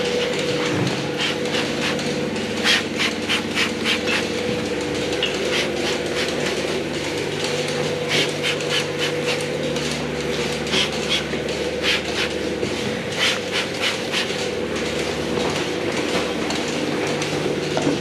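Dairy milking-parlour machinery running: a steady hum from the vacuum pump and milking system, with groups of sharp clicks and metal clatter from the pulsators and the clusters and gates being handled.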